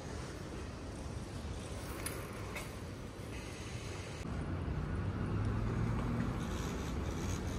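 Street ambience with a low, steady rumble of road traffic; a vehicle grows louder about halfway through as it comes close and passes.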